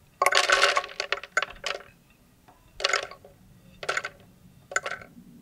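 Whole almonds dropped by hand into an empty clear plastic Vitamix blender jar, clattering against the bottom and sides. A first handful rattles in for most of a second, followed by smaller drops about once a second.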